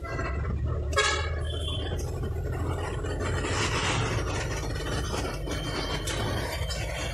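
A vehicle's engine running with a steady low rumble, heard from inside as it drives through traffic. A horn toots briefly about a second in, with a fainter short toot just after.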